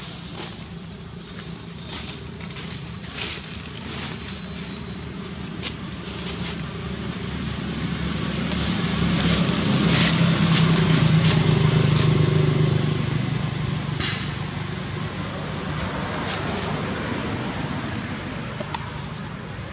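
A passing motor vehicle: a low engine rumble that swells to its loudest about halfway through, then fades away.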